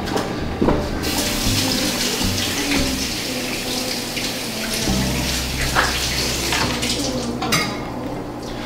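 Kitchen faucet running water into a sink: a steady rush that starts suddenly about a second in and stops near the end.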